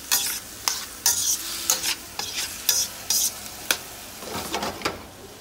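Spatula scraping and clacking against a wok as chicken pieces are stir-fried, with a steady sizzle underneath. The scrapes come irregularly, a few each second.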